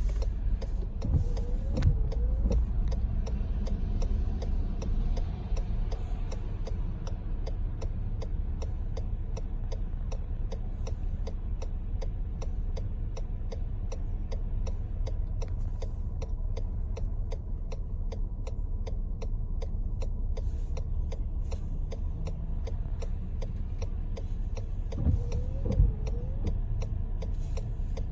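Inside a car: steady low engine and road rumble with an indicator flasher clicking about twice a second. Two brief knocks stand out, about two seconds in and near the end.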